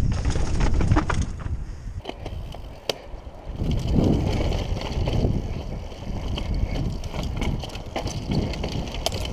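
Mountain bike riding down a dirt and rock singletrack: tyres rolling and crunching over dirt and stones, the bike rattling with many sharp clicks over bumps, and wind rumble on the microphone. It eases briefly about two seconds in and grows louder again near the middle.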